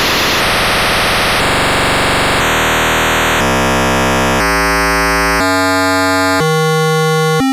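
Computer-generated noise from the low bits of a linear congruential generator, switching to a lower bit about once a second. It starts as a hiss and turns step by step into a shorter and shorter repeating pattern, ending as a buzzing pitched tone.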